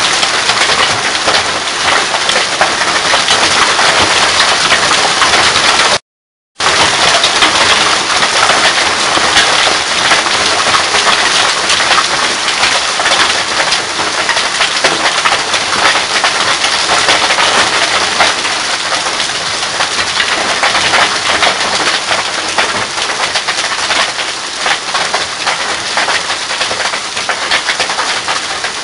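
Hail and rain pelting the ground and nearby surfaces: a loud, dense, steady patter of countless small ticking impacts. The sound cuts out completely for about half a second around six seconds in.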